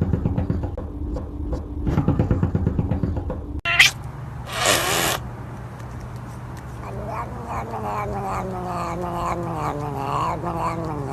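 Cat vocalising. First a rapid low pulsing sound, then a sharp click and a brief hiss-like burst, then from about seven seconds in a long, drawn-out, wavering yowl.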